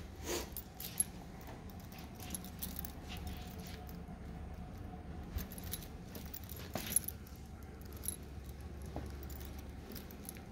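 Light jingling and clicking in scattered short bursts as someone walks, over a low steady hum.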